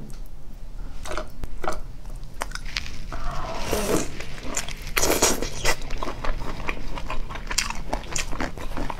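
Close-miked mouth sounds of biting and chewing braised pork off the bone: wet smacks and clicks, with louder bursts of tearing and chewing about three to four seconds in and again around five seconds.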